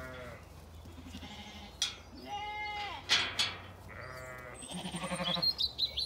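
Zwartbles sheep bleating, several separate calls from different animals, one of them buzzy and wavering. A few sharp clicks come around the middle, and a bird chirps near the end.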